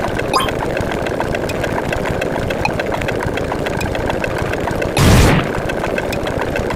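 Computer-generated sound effects of a fast binary counter: a dense stream of rapid ticks that blurs into a steady buzz, with one loud burst of noise about five seconds in lasting about half a second.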